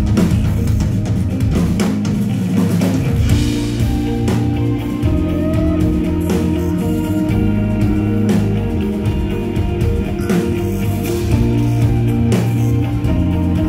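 Live instrumental progressive rock band playing: electric guitars over bass and a drum kit with frequent cymbal and drum hits, loud and continuous.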